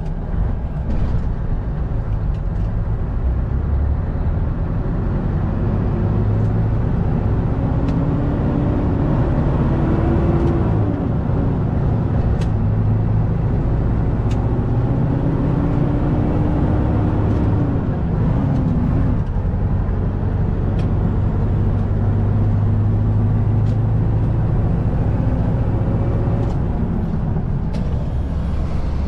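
Scania 144's V8 diesel engine running under way, heard inside the truck cab as a steady low drone, its note climbing and falling a couple of times in the middle.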